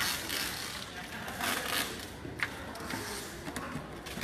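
Scraping and rustling from ballot boxes being handled and sealed, in several short bursts, with a sharp click about two and a half seconds in.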